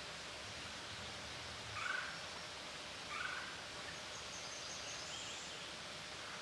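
Woodland ambience: a steady background hiss with two short bird calls a little over a second apart, the loudest sounds, followed by fainter high chirps.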